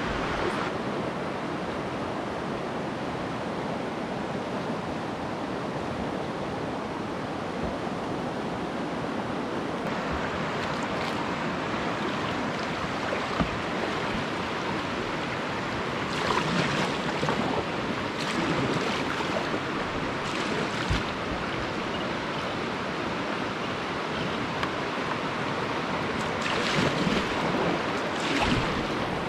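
River water rushing over riffles and small rapids, a steady hiss, with a few louder splashes around the middle and near the end.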